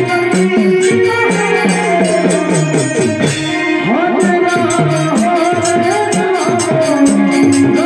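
Hari kirtan devotional music, instrumental passage: a keyboard plays a flowing melody over a hand drum and jingling, rattle-like percussion that keeps a steady beat of about four to five strokes a second.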